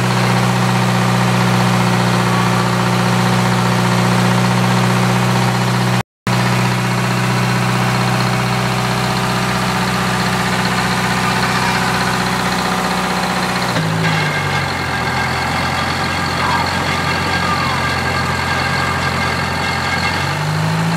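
Detroit Diesel 4-71 two-stroke diesel in a 1952 Unit crawler crane running steadily at raised speed. About two-thirds of the way through it drops to a lower idle, and it picks back up near the end. The sound cuts out for a split second about six seconds in.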